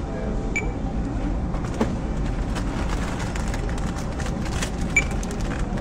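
Two short, high beeps of a supermarket self-checkout barcode scanner, about four seconds apart, with a light knock between them, over a steady low background hum.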